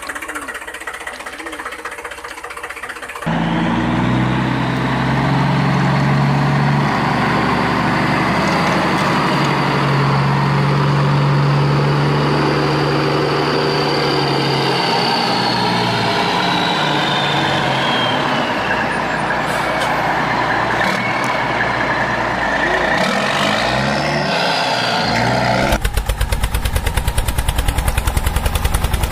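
Added heavy-truck engine sound effect. It runs quieter for the first three seconds, then loud and steady with a slowly falling high whine. About 26 s in it switches to a fast, even pulsing engine chug.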